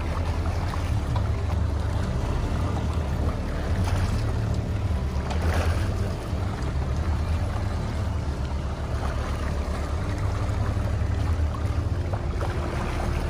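Boat motor running steadily at trolling speed: a low, even drone.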